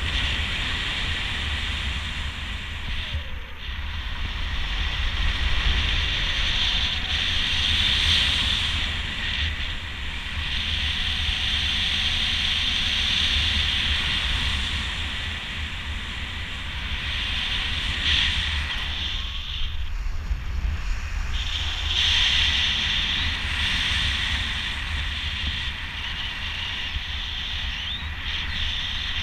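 Wind rushing over the microphone in flight under a speedflying miniwing: a steady low rumble with a hiss that rises and falls, dropping away briefly a few times.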